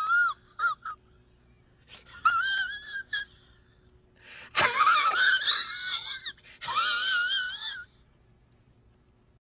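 Three high-pitched wavering squeals, each rising at its start and then wobbling in pitch. The second, about halfway in, is the loudest and longest.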